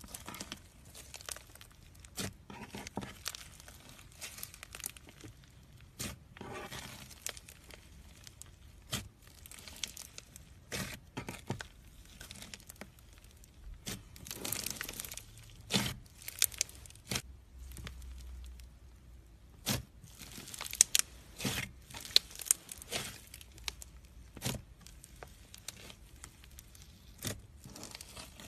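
Foamy slime being squeezed, stretched and pulled apart by hand, with coffee powder worked into it: irregular sticky tearing and crackling, with sharp pops as air pockets burst, a few louder ones past the middle.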